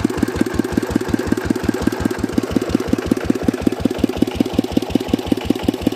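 Single-cylinder Dongfeng 16 hp diesel engine running steadily with a quick, even chugging beat while it drives an NS-80 water pump.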